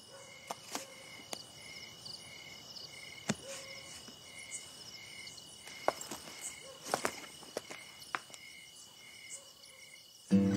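Night-time insect ambience: a cricket chirping about twice a second over a steady high-pitched insect drone, with scattered faint clicks. Music comes in near the end.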